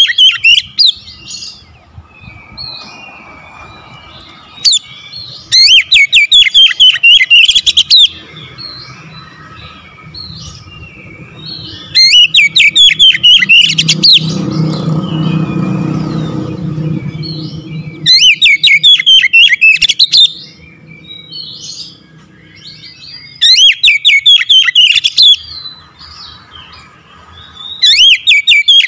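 Oriental magpie-robin singing in loud bursts of rapid, sharp, sweeping notes. Each burst lasts about two seconds and comes back every five to six seconds: the bird in full song.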